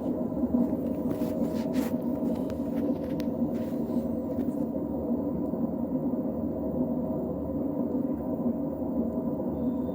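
Washing machine running with a steady motor hum and low rumble.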